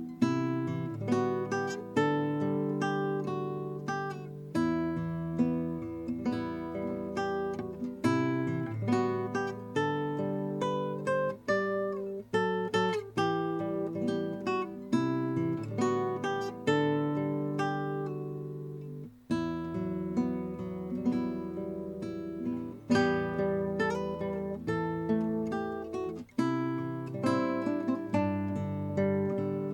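Kodaira AST-100S nylon-string classical guitar played fingerstyle: a continuous run of plucked melody notes and chords over ringing bass notes.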